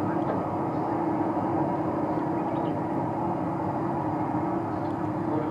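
Airbus A340-300's four CFM56 turbofan engines running steadily as the airliner rolls slowly along the runway: an even drone with one held mid-low tone.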